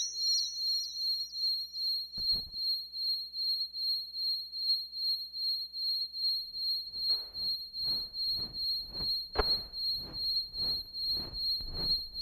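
Experimental electronic music: a steady high-pitched sine tone over a faint low hum, pulsing about twice a second. About seven seconds in, noisy rhythmic hits come in on the same pulse, with one sharp click near the end.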